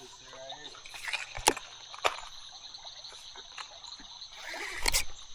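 Creek water trickling, with a steady high chirring of insects over it. Two sharp clicks come about a second and a half and two seconds in.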